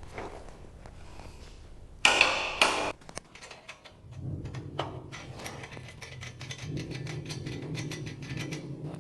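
Two sharp metal knocks, then rapid irregular mechanical clicking over a steady low hum that sets in about four seconds in.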